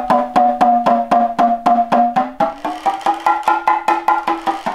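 Kotsuzumi shoulder drum struck rapidly by hand, about four or five strokes a second, each a short pitched pop. About halfway through, the pitch steps up as the lacing cords are squeezed, and it holds at the higher note.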